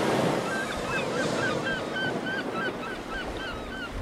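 Surf washing on a shore with a flock of birds giving many short, repeated calls, about three a second, starting about half a second in.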